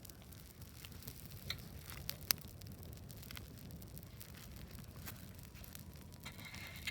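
Wood bonfire burning with a low steady rumble and scattered sharp crackles and pops, the loudest a couple of seconds in.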